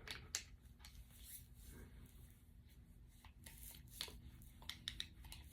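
Faint, irregular clicks and light knocks as a copper-pipe crimping tool and its parts are handled.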